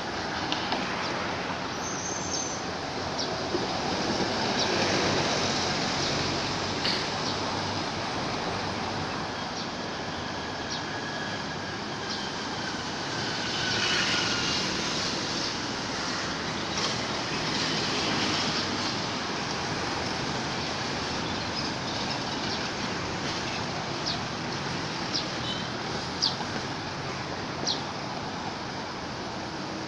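Steady outdoor background noise, a even hiss with broad swells in level, scattered faint clicks and a few brief faint high squeaks.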